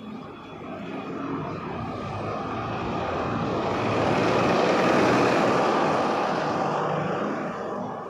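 A double-decker bus passing close by on the street: its engine and tyre noise swell to a peak about five seconds in, then fade away.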